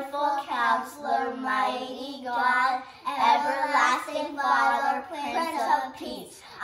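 Children singing together, held sung notes with short breaks about three seconds in and again near the end.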